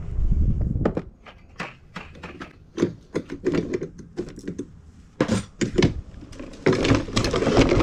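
Irregular knocks and clatter of equipment being handled in the back of a box truck, as a drum-type power drain auger and its coiled cords are grabbed and moved. A denser stretch of rustling and scraping comes near the end.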